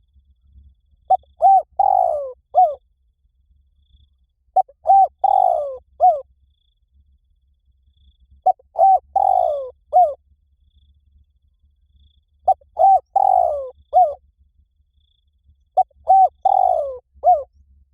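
Spotted dove cooing: a phrase of a few short coos with one longer, falling coo, repeated five times about every three and a half to four seconds. This is the 'หลิ่วตัน' call style used as a lure to make other spotted doves coo back.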